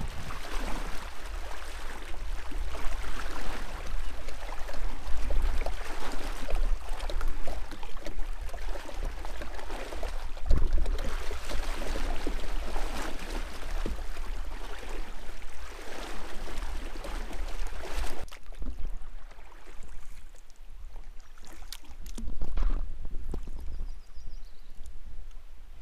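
Splashing of legs wading through a fast, shallow river riffle while a plastic kayak is towed, with water rushing around the hull. About eighteen seconds in it drops to quieter, calm water, with a few knocks near the end.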